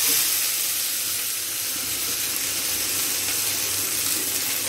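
Freshly chopped onions, curry leaves, green chilli and coriander sizzling steadily in hot oil in a kadai, just after being tipped into the pan to sauté.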